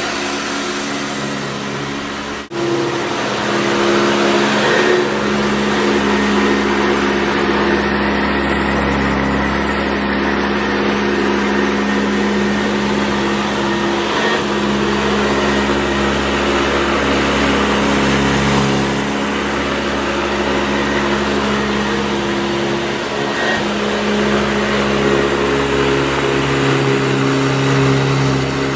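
Vintage Hoover Convertible U4193 upright vacuum cleaner running: a steady motor hum with a rush of air. About two and a half seconds in, the sound drops out for an instant, then carries on a little louder.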